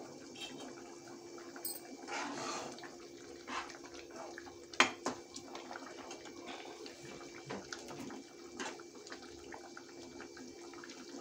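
Tomato-onion gravy for matar paneer simmering in a pan on the stove, with faint bubbling and scattered small pops under a low steady hum. There is one sharp metallic clink about five seconds in.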